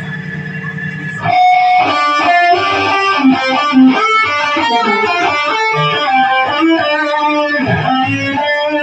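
Electric guitar played through an amplifier: after a steady low hum, a fast run of quickly picked single notes starts about a second in and keeps going.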